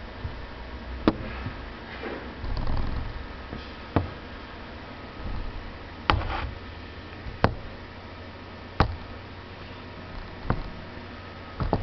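Wooden blocks being set down and shifted on a hard, glossy tabletop: sharp knocks every second or two, with short scrapes in between.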